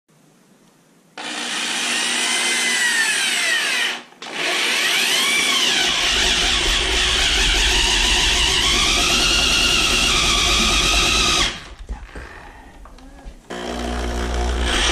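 Power drill boring into a 2x4 with a spade bit, running in three bursts. It stops briefly about four seconds in and for about two seconds near the end. The motor's whine wavers up and down under load, and a low rumble builds as the bit cuts into the wood.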